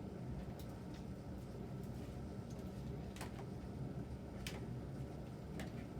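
Pigeons moving about in a loft: a low steady background with a few sharp ticks and taps, the loudest about three and four and a half seconds in.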